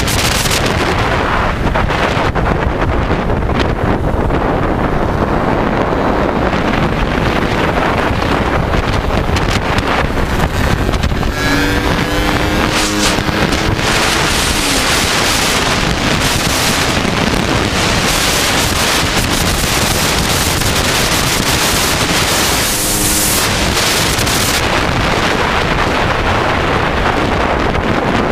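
Heavy wind buffeting on a helmet-mounted camera's microphone, with a small racing motorcycle's engine running at speed beneath it. About halfway through the engine note comes through briefly and rises, and again for a moment later on.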